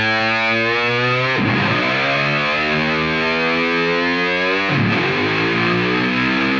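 Intro music of heavily distorted electric guitar chords, each held and left ringing. A new chord is struck about a second and a half in and again near five seconds.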